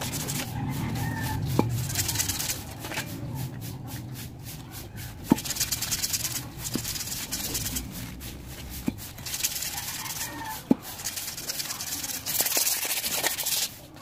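Hand-sanding a brake drum: abrasive paper rasping over the metal in quick repeated strokes, broken by several sharp short knocks as the drum is handled.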